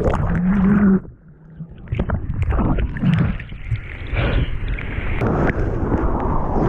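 Strong wind buffeting the action camera's microphone, with water splashing and churning around it in the surf. About a second in, the sound suddenly goes muffled and quiet for about a second, then the splashing and wind come back.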